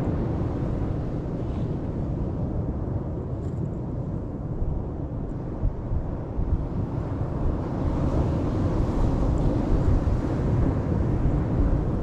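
Atlantic Ocean surf breaking and washing up a sand beach, with wind buffeting the microphone in a steady low rumble that grows a little louder in the second half.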